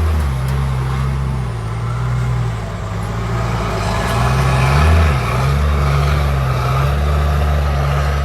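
Heavy truck engine running steadily, its low pitch wavering slightly with a brief dip about five seconds in.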